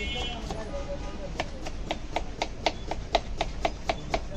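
Small kitchen knife slicing a red onion against a cutting board: quick, even chopping strokes, about four a second, that grow steady and louder about a second and a half in.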